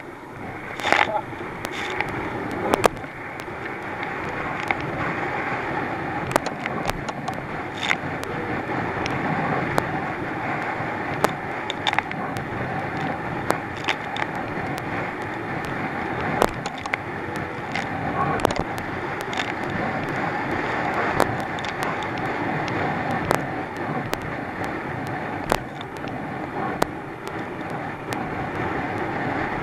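A Thundercat inflatable racing boat running hard through swell: the outboard engine's steady drone under rushing wind and water, broken by frequent sharp irregular slaps and knocks as the hull bangs over the waves.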